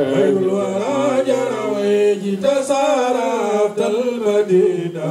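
Men's voices chanting an Islamic devotional poem without instruments, amplified through microphones.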